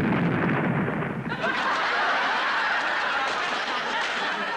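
Loud rush of noise from a stage prop cannon's smoke blast, giving way about a second in to studio-audience laughter and cheering.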